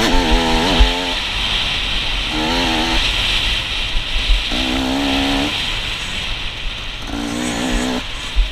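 Dirt bike engine revving up and down in repeated throttle pulses as the bike is ridden over a dirt track, under heavy wind noise on the helmet-mounted microphone, with a low thump about a second in.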